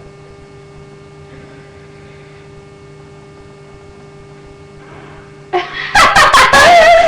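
A steady faint electrical hum, then about five and a half seconds in a loud, wavering gargling sound from the mouth and throat: a forced attempt at a burp that doesn't come out.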